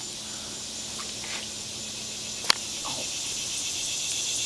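Steady high-pitched insect chorus, growing slightly louder toward the end, with one sharp click about two and a half seconds in.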